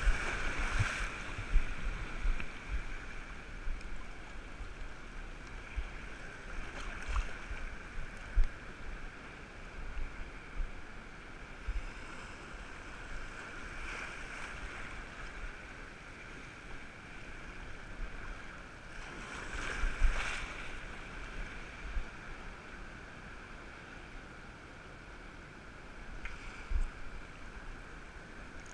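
Sea surf washing and splashing around a wading angler, with low thumps of wind buffeting the camera microphone. The wash swells louder about a second in, around eight seconds in and again around twenty seconds in.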